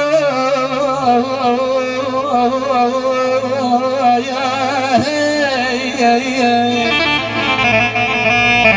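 Middle Eastern song music: an ornamented melody line with a wavering vibrato over steady accompaniment.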